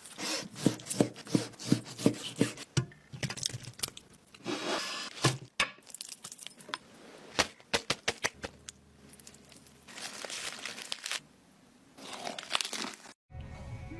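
Close-miked food-prep sounds: a quick series of knife chops on a cutting board in the first few seconds, then scattered crinkling, tearing and crunching noises. Near the end there is a crunchy bite into a lettuce wrap.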